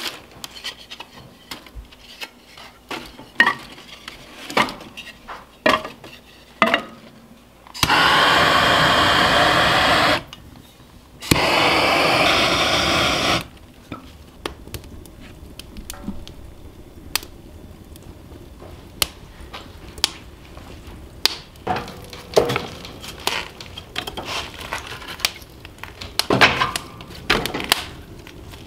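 Wood stove being lit and loaded: wood and paper knocking and rustling in the firebox, two loud steady hisses of about two seconds each about eight and eleven seconds in, then the kindling fire crackling with scattered pops and knocks as wood is laid on.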